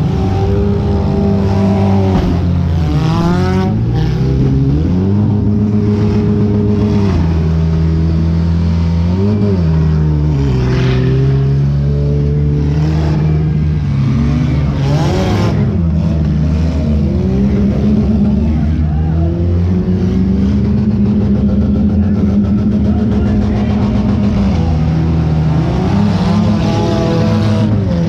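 Compact demolition derby car's engine revving up and falling back over and over as it drives. There are a couple of sharp bangs, about four seconds in and again around the middle.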